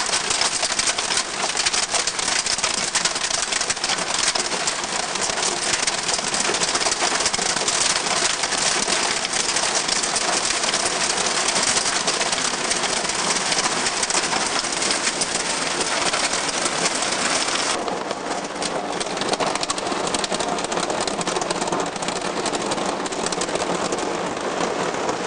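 Hail pelting down: a steady, dense clatter of hailstones striking the ground, roof and siding. About two-thirds of the way through it turns duller, heard from indoors under the roof and skylight.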